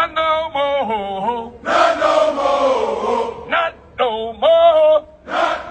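Call-and-response chanting: a single male voice leads in pitched, bending lines, and a group of men answers in unison, back and forth several times.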